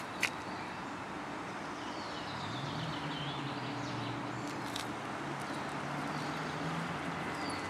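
Outdoor ambience: a steady hiss with a low vehicle-engine hum that rises in pitch about two seconds in and then holds, a few faint bird chirps, and a couple of light clicks.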